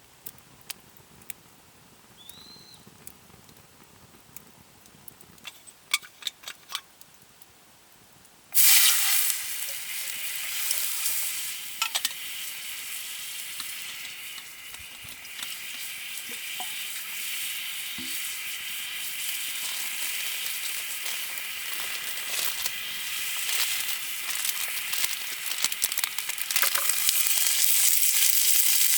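A few light clicks and taps, then food dropped into a hot pan starts sizzling and frying suddenly about a third of the way in, growing louder near the end.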